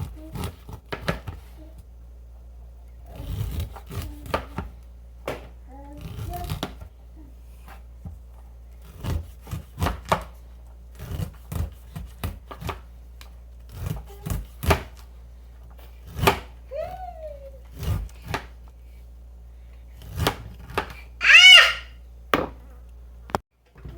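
Knife cutting kernels off ears of corn, a run of irregular short chopping knocks and scrapes. A high-pitched voice calls out once near the end, louder than the cutting.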